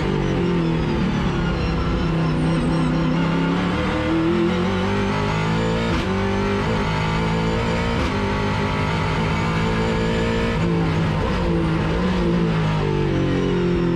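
Ford XE Falcon race car's engine heard from inside the stripped cabin, pulling hard and climbing in pitch, then dropping several times as the driver shifts and slows for corners.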